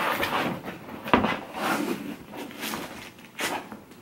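Ribbon bow being pulled off a gift box: rustling and sliding of ribbon and box, with a sharp knock about a second in and another near the end.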